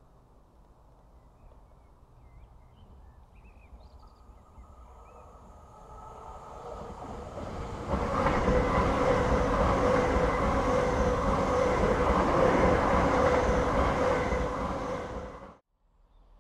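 Pair of coupled Hitachi Class 800 IEP trains approaching and then passing close at speed. A faint rumble grows, turns suddenly loud about halfway through, and becomes a steady rush of wheels on rail with a steady whine. It cuts off abruptly near the end.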